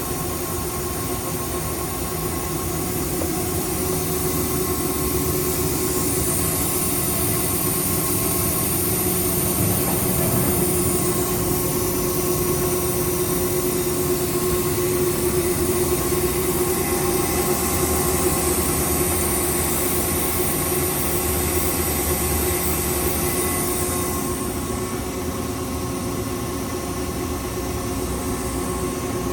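Mazak Powermaster 2500 CNC lathe running under power: a steady mechanical hum with a whine, swelling a little in the middle and easing off near the end.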